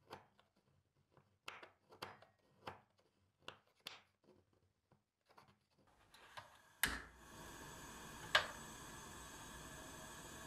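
A kitchen knife chopping a chocolate bar on a wooden cutting board: about eight sharp, uneven cuts over the first four seconds. About seven seconds in, a sharp click is followed by the steady hiss of a lit gas stove burner under a steel pot, with a second click a second and a half later.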